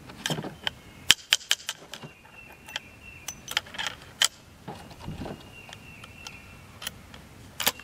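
A string of light metallic clicks and rattles from a single-shot shotgun being reloaded: the action worked open and shut and a .38 Special cartridge handled in the 12 gauge adapter. The clicks come in a quick cluster in the first two seconds, then scattered singly, with no shot fired.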